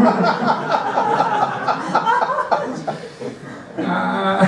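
People laughing and chuckling at a joke, dying down after about three seconds.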